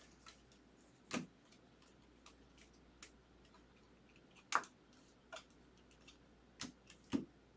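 Baseball trading cards being handled and flipped through: scattered light clicks and taps at irregular intervals, a few of them sharper.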